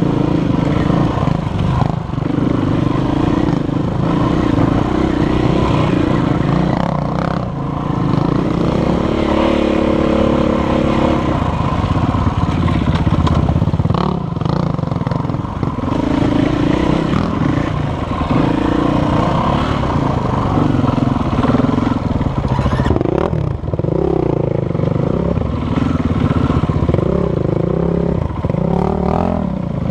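KTM 450 EXC-F's single-cylinder four-stroke engine, heard from on the bike as it is ridden, the revs rising and falling with the throttle. Now and then there is a knock or rattle from the bike going over bumps.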